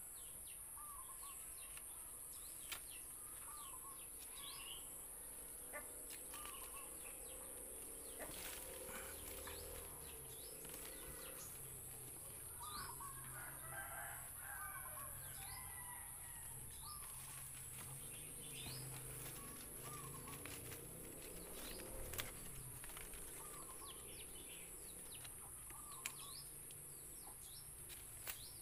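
Faint outdoor ambience of small birds chirping over and over and a hen clucking, over a steady high-pitched hiss. A few sharp clicks stand out, with leaves rustling as young monkeys climb through the branches.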